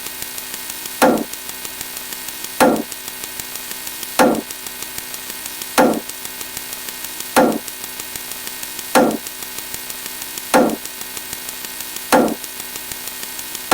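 A repeating sound-effect hit, dull and knock-like, struck eight times about every second and a half, over a steady electronic hum with fast, faint ticking.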